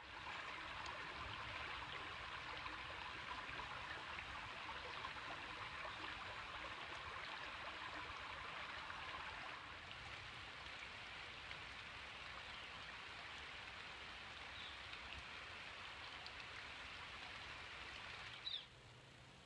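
Shallow stream water running steadily over rocks. It turns a little quieter about halfway through, then cuts off suddenly near the end.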